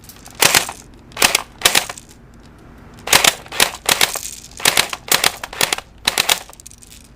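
Pulse R71 battery-powered airsoft gun firing on full auto in about ten short bursts, each a rapid rattle of shots.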